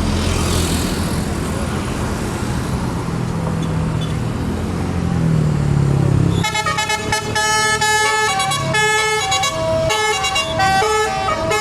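A bus's engine running and rising in pitch as it draws near, then about six seconds in a telolet horn, a multi-tone musical air horn, starts playing a quick tune of shifting notes.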